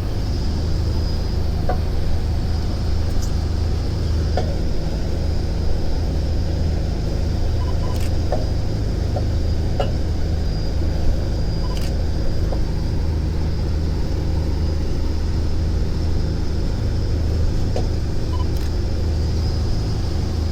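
Parasailing boat's engine running steadily: a constant low drone, with a thin steady high whine above it and a few scattered light clicks.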